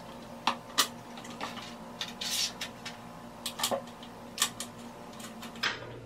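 Small stainless bolts and washers clicking and tapping as they are fitted by hand, mounting a cooler-and-fan pack to its shroud: about eight separate light clicks spread through, over a faint steady hum.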